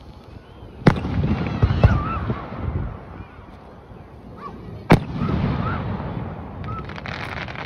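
Aerial firework shells bursting: two sharp bangs, about a second in and again about five seconds in, each followed by a rumbling echo, with a cluster of smaller pops near the end.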